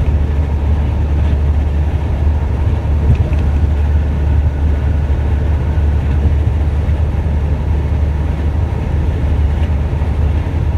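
Steady low rumble of a work truck driving at speed, heard from inside the cab: engine and road noise.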